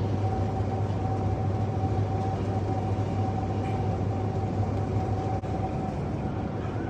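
Steady low machine hum with a faint high whine over it; the whine stops about five and a half seconds in while the hum runs on.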